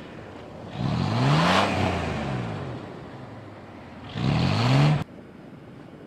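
Chevrolet Blazer 4x4 engine revved twice while its wheel spins in packed snow, a stuck vehicle trying to drive out. The first rev rises and then falls away. The second rises and cuts off suddenly, with a hiss of spinning tire over both.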